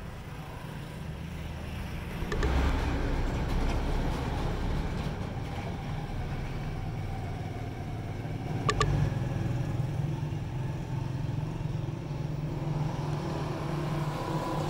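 Motor vehicle engine running steadily with a low, even hum. It swells louder about two and a half seconds in and again near nine seconds, where two sharp clicks also sound.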